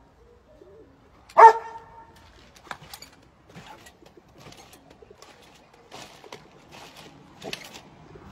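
A dog barks once, loud and short, about a second and a half in, among scattered soft thumps and rustles as it leaps on and off a small trampoline.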